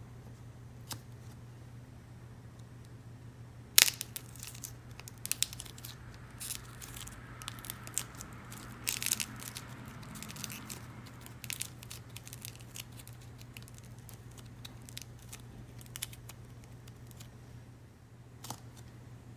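The dried, hardened shell of a small clay figure cracking and crumbling as fingers squeeze and snap it, a run of sharp crisp cracks and crinkles, the loudest about four seconds in and the rest thinning out toward the end.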